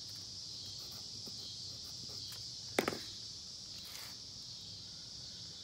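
Steady high-pitched trilling of crickets, with a few faint ticks and one sharp tap a little under three seconds in, as multimeter probes are handled on the terminals of a transmission solenoid pack.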